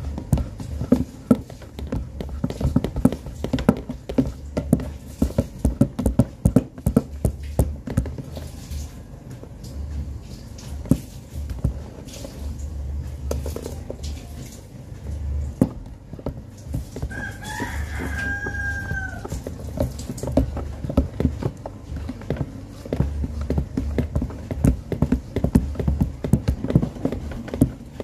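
A rooster crows once, a call of about two seconds a little past the middle, over frequent knocking and clattering and a low rumble.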